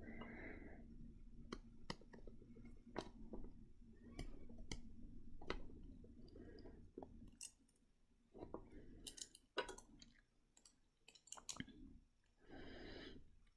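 Faint, irregular clicks and short scrapes of a small metal tool picking and scraping the papery skin off a fresh avocado seed.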